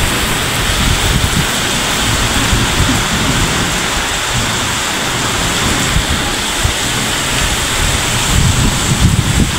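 Heavy rain pouring down steadily: a loud, even hiss with a low rumble underneath.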